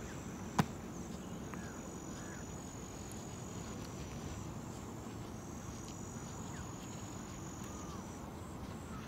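Insects trilling in a high, steady buzz that breaks off and starts again every few seconds, over low outdoor background noise. A single sharp click comes about half a second in, and a few faint short chirps follow.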